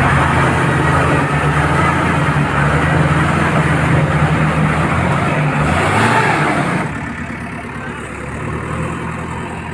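Heavy diesel engine running hard under load, with a brief rise in pitch about six seconds in. About seven seconds in it eases off to a quieter, lower run.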